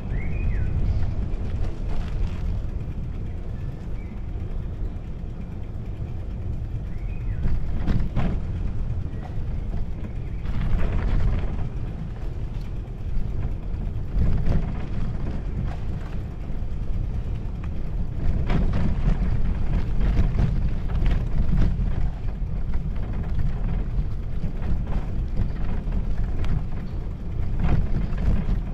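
Steady low rumble of wind on the microphone and bicycle tyres rolling along a path, with occasional short knocks and rattles from the bike. A few short high chirps are heard near the start.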